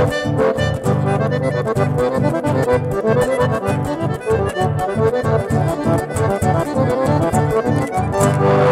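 Chamamé played live on a button accordion, a quick run of melody notes over a steady pulsing beat, with acoustic guitar accompaniment.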